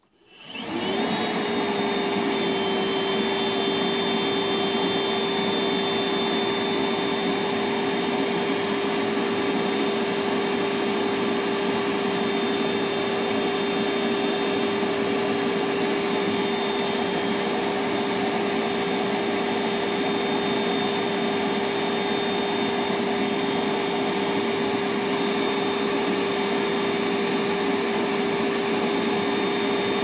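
Milwaukee M12 FUEL 1.6-gallon wet-dry shop vac with a brushless motor, switched on and spinning up within about a second, then running steadily at a constant pitch with a faint high whine over the airflow.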